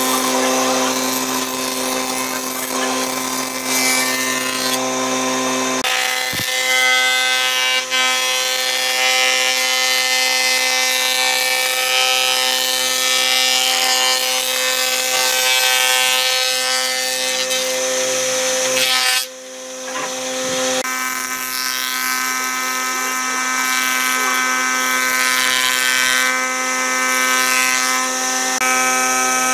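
Combination jointer-thicknesser running, its cutterhead planing wooden boards: a steady machine whine with the hiss of the cut. The pitch and level shift abruptly a couple of times, with a short dip about two-thirds through.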